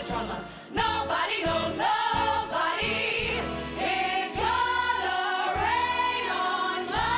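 A woman's voice singing long held notes with vibrato over an orchestra, in a Broadway show tune.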